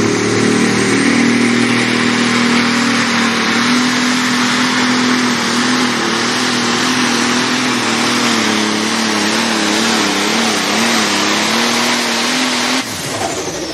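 Light/limited pro stock pulling tractor on a John Deere 4430 chassis, its diesel engine running flat out under heavy load while dragging the pulling sled. The engine pitch wavers up and down in the later part of the pull, and the sound drops off sharply near the end.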